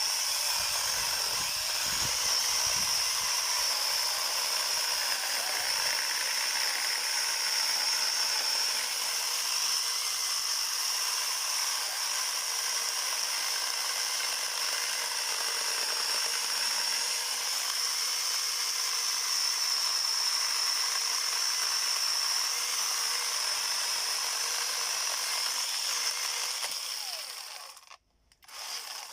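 Cordless angle grinder fitted with a chainsaw bar-and-chain conversion kit, running steadily with a high whine over a rattling hiss. It shuts off near the end, then runs again in one short burst.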